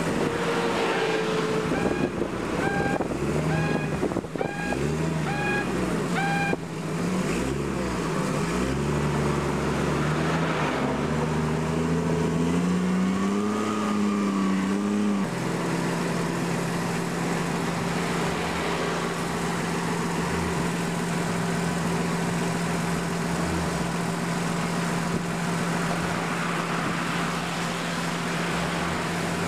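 Large Toyota forklift's engine revving up and down as it works the load, then settling into a steady drone about halfway through. A run of short, evenly repeated beeps sounds over the first few seconds.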